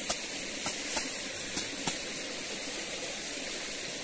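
Shallow stream running steadily over rocks. There are a few short splashes or knocks in the first two seconds as clothes are washed by hand in the water.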